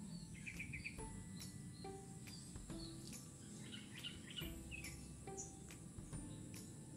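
Faint soft background music: short notes at changing pitches over an even beat. Birds chirp in quick runs about half a second in and again around four seconds in, over a steady high-pitched hiss.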